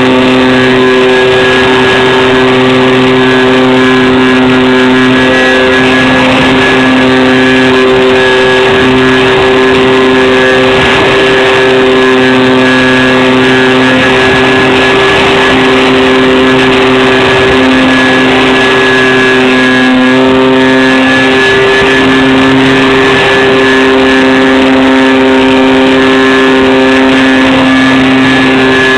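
The twin electric motors and propellers of a home-made RC plane running steadily. Two motors are heard at two held pitches, with small brief dips in pitch every few seconds over a rushing hiss.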